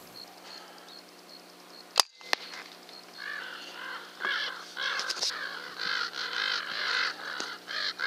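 Air rifle shot: a sharp crack about two seconds in, then a second sharp click a third of a second later. From about a second after that, crows or ravens caw harshly and repeatedly, several calls a second, rising to a continuous clamour.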